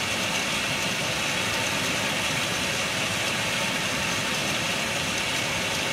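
Steady hiss with a low hum from running laboratory machinery, unchanged throughout.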